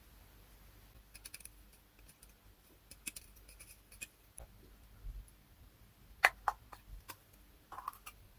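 Faint, scattered clicks and taps from handling a plastic LED bulb and small metal hand tools, a metal pick touching the LED board; the clicks come closer together and louder a little after six seconds in.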